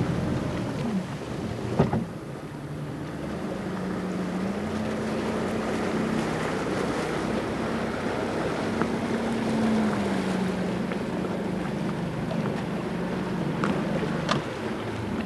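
A boat's motor running with a steady hum that rises a little in pitch a few seconds in and again midway, then settles back, over a haze of wind and water noise. There is a sharp click about two seconds in and a few more near the end.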